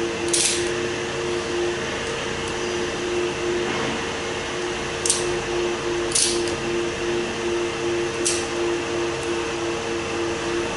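Steady machine hum like a fan running, with a few short sharp clinks of metal parts and tools as a diesel high-pressure fuel pump is handled and assembled in a bench fixture.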